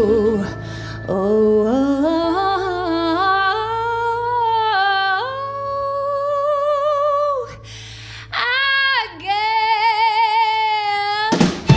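A woman singing unaccompanied while the band is stopped: long held notes with wide vibrato and swooping slides between them, a solo vocal break in a Western swing song. The full band, fiddle included, comes back in just before the end.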